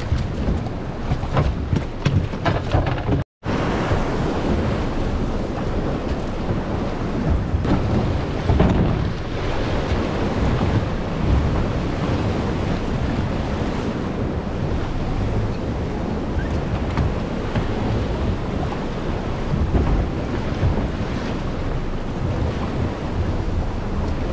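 Wind buffeting the microphone over a rough sea, with surf breaking on rocks: a steady rushing noise. The sound cuts out completely for a moment about three seconds in.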